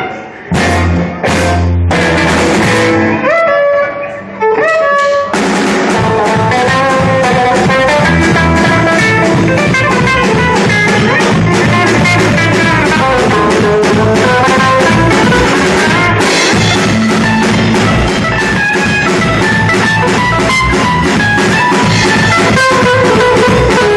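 Band music with drum kit and guitar, thinning to a few held notes about three to five seconds in before the full band comes back in.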